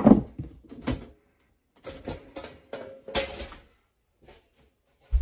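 Steel dead-front cover of a Square D QO breaker panel being lifted off and handled. There is a sharp metal knock at the start, then a series of clunks and scrapes over the next three and a half seconds, and another thump near the end.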